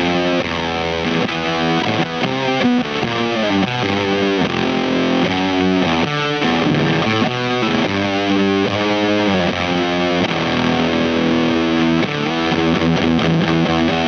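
Jazzmaster-style electric guitar played through a Weird Noise Pedals Fuzz It fuzz pedal with its germanium and silicon sides combined: a thick, saturated fuzz tone over a run of riffs and held chords.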